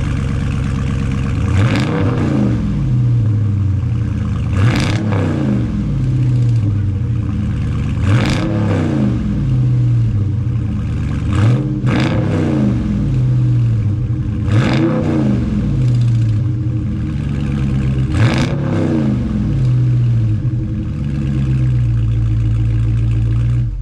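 2019 Dodge Charger Scat Pack's 6.4-litre HEMI V8 with its stock exhaust, revved in place: about seven quick blips a few seconds apart, each rising and falling back to a loud idle. It registers about 97 dB peak on a phone decibel meter.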